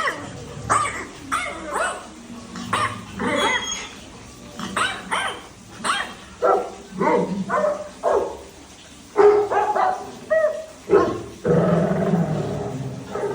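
Labrador retriever barking over and over in short, sharp barks, about one or two a second, with a longer drawn-out call near the end.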